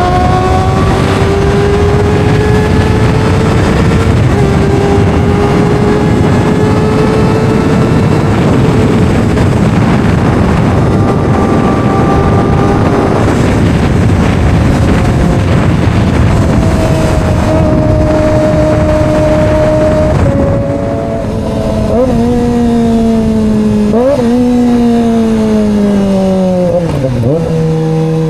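Kawasaki ZX-25R's 250 cc inline-four engine running at high revs under way, its pitch climbing slowly over a steady rush of wind noise. About two-thirds of the way through, the revs fall away in steps, with short sharp jumps in pitch as the bike slows.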